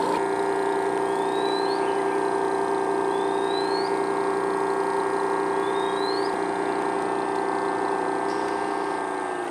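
KOWWER P1 portable gas generator, fed from a gas canister, running with a steady hum; near the end it is switched off and its note falls in pitch and fades as the engine winds down.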